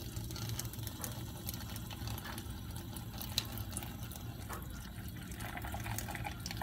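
Faucet running a thin, steady stream into a stainless steel sink, splashing over a glass microscope slide held under it to rinse off Gram stain.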